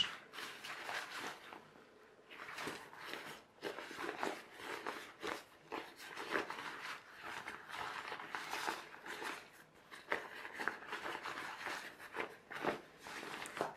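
Rustling and crinkling of a waterproof rain jacket's fabric as it is handled, folded open and turned over, in many short uneven spurts.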